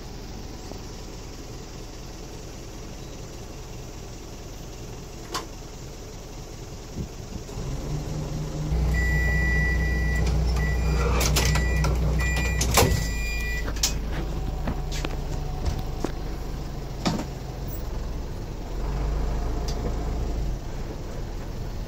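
Interior of the DMV dual-mode rail/road microbus: its diesel engine runs at a low rumble, then grows much louder about nine seconds in. A high electronic beep sounds over it, one long tone followed by several short ones, with a few clicks and rattles.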